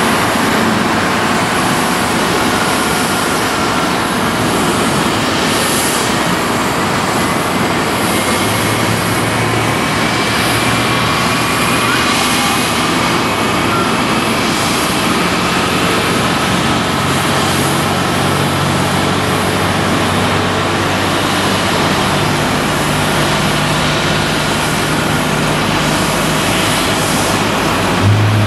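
Jet aircraft noise from a Boeing 777 being pushed back by a tow tug: a steady rush with faint, slowly rising whines, and a low hum that comes in about a third of the way through.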